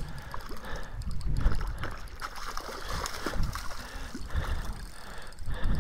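Splashing and gurgling of shallow lake water as a hooked trout thrashes at the shoreline while it is being landed.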